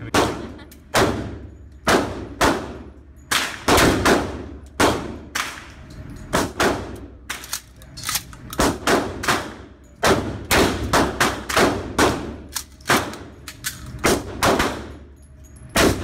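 Gunfire on an indoor shooting range: many shots at uneven intervals, some in quick runs of two or three, from more than one gun, each echoing off the walls.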